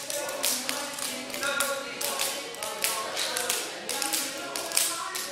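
Rapid, irregular sharp taps and slaps, several a second, over a faint steady hum of tones.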